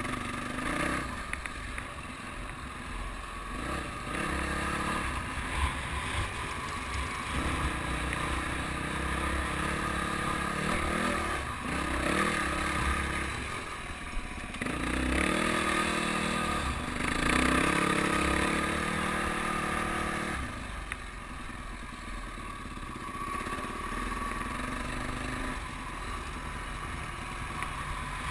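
Dirt bike engine being ridden on a trail, the revs rising and falling with the throttle and loudest about halfway through.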